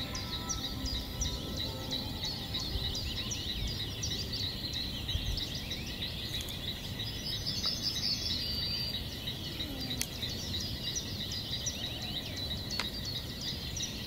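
Outdoor wildlife ambience: rapid, repeated high chirping calls, several a second, over a steady low rumble, with a couple of sharp clicks later on.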